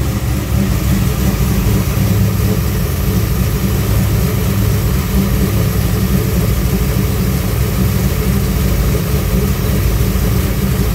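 Car engine idling steadily, driving a new serpentine belt and power steering pump, with no popping from the belt riding the pulley's edge.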